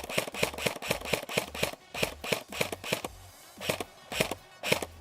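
Airsoft guns firing a quick string of single shots, about four a second, then a short lull and a few more shots spaced about half a second apart. Electronic music with a steady low bass plays underneath.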